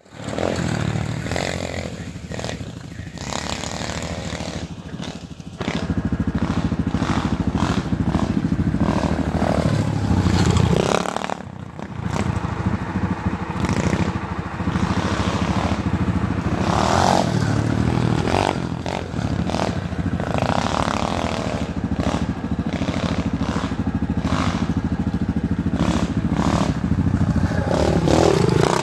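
Small dirt bike engine running as it is ridden, with the pitch rising and falling as the throttle is opened and closed several times. It drops off briefly about eleven seconds in, then picks back up.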